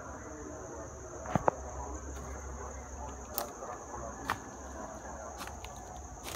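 An insect buzzing in one steady high tone, with footsteps on dry leaf litter and a few sharp clicks and cracks, the loudest a quick pair about a second and a half in.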